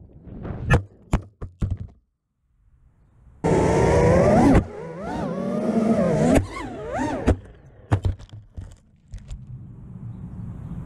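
Onboard audio of a 5-inch FPV freestyle quadcopter, an Armattan Chameleon Ti on T-Motor F40 III 2306 2400 kV motors. It opens with sharp knocks and scrapes as the quad strikes concrete and rocks, and the motors cut out briefly. They then whine back up, the pitch sliding up and down with the throttle, before more knocks as it crashes again and ends in a low steady hum.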